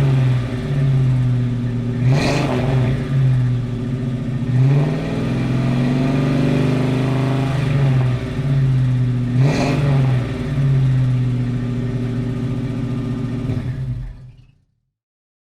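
Muscle car exhaust running near idle with the pitch rising and falling under small throttle blips, and two sharp revs, about two seconds in and again near ten seconds, each climbing quickly then dropping back. The sound fades out fast about fourteen seconds in.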